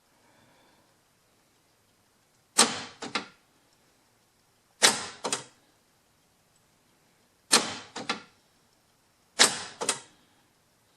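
Aftermarket power door lock actuator firing four times, each stroke a sharp clack followed quickly by two smaller clicks, as the locks are cycled locked and unlocked.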